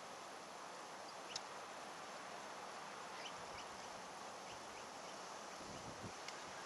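Faint steady wind noise with several short, high bird chirps scattered through it.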